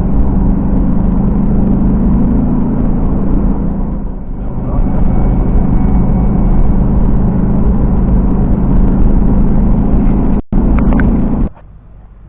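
Vehicle engine and road noise while driving: a steady low hum that dips briefly about four seconds in and cuts off sharply near the end.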